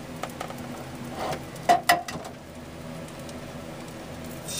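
Bread frying in bacon grease in a cast-iron pan: a faint crackling sizzle, with a few sharp knocks a little under two seconds in.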